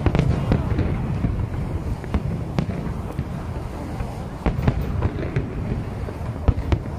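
Aerial firework shells bursting over a continuous low rumble, with a dozen or so sharp bangs at uneven intervals.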